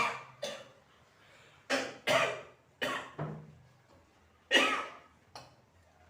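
A person coughing repeatedly: about eight short, sharp coughs, mostly in quick pairs, with short pauses between them.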